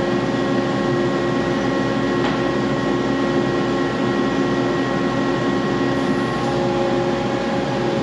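Kaeser AS 20 T rotary screw air compressor running steadily: a constant machine hum with several held whining tones. About six seconds in, the mix of tones shifts slightly. It is running loaded, with line pressure climbing from about 117 to 119 psi.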